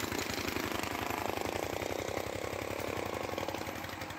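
A small engine running steadily with a fast, even chugging beat, growing a little fainter near the end.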